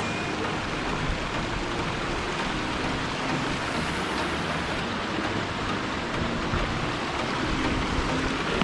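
Steady rush of flowing water, an even hiss that holds level throughout.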